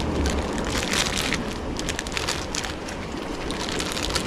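Steady wind and sea noise around a small open boat, with a plastic food packet rustling as tofu is broken out of it by hand, mostly in the first second or so.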